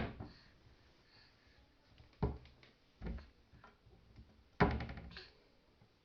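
A door being banged shut over and over by a small child: a thud about two seconds in, a softer knock a second later, and a louder bang with a brief rattle at about four and a half seconds.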